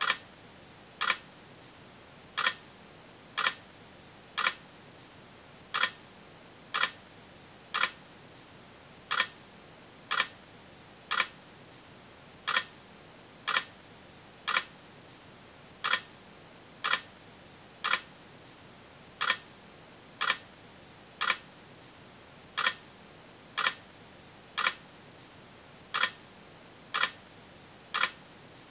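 Sharp, mechanical-sounding clicks, about one a second in groups of three with a slightly longer pause between groups, over a steady hiss.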